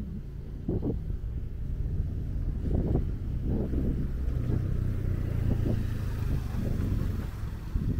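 Street traffic ambience: a low vehicle rumble that strengthens through the middle, with short irregular sounds over it.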